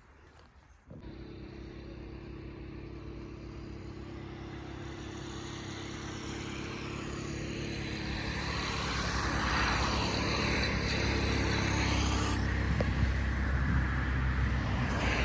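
A motor vehicle's engine running steadily, getting louder over the first ten seconds or so.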